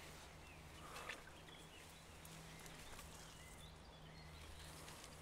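Near silence: faint rustling of nettles and reeds brushed aside by someone walking through them, a little louder about a second in, with a few faint bird chirps.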